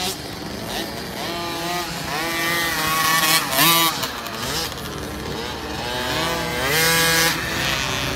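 50cc two-stroke youth motocross bike engines revving high and dropping back as they ride the track, with two rising surges of revs, loudest about three and a half seconds in and again around seven seconds.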